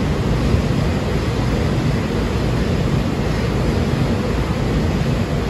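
Steady low rumbling noise of an underground railway platform, even in level with no breaks or changes.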